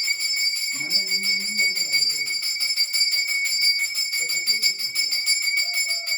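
Brass puja hand bell (ghanti) rung rapidly and without pause, its clapper striking several times a second and the bell ringing on between strikes.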